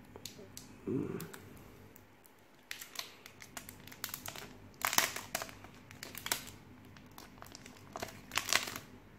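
Clear plastic packaging sleeve crinkling and crackling in irregular bursts as a new smartphone is pulled out of it by hand. The loudest crackles come about five seconds in and again near the end.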